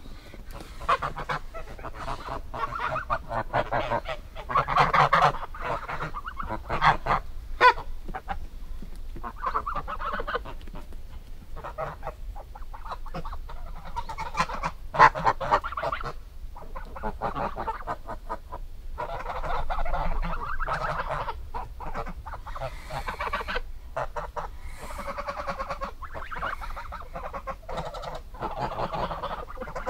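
Geese honking, one call after another with only short gaps between them.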